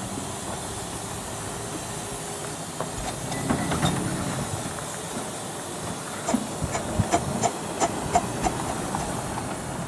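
Miniature steam locomotive hissing steam with a train of coaches. From about six seconds in, a regular clicking sets in, about three a second, as the train gets moving.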